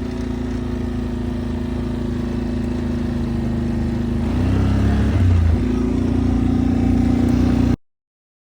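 ATV engine running under way, a steady drone whose pitch shifts and grows louder about four and a half seconds in. It cuts off suddenly near the end.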